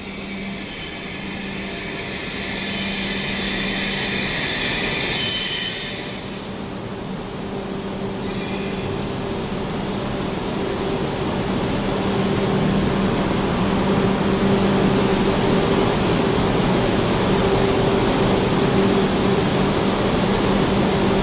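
Shinkansen train standing at the platform, its onboard ventilation and auxiliary equipment running with a steady hum. A higher hissing sound lies over it for the first six seconds or so.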